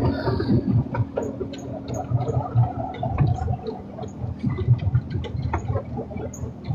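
Miniature park railway train running along its track, heard from on board: a low rough rumble with frequent clicks and rattles from the wheels and carriages. A steady hum sounds over it and fades out about three seconds in.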